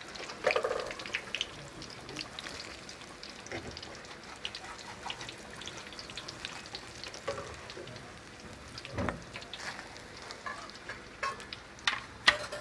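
Hot oil in a wok sizzling and crackling steadily as breaded potato-chicken tikkis fry, with many small pops. A few sharper clicks stand out, the loudest near the end.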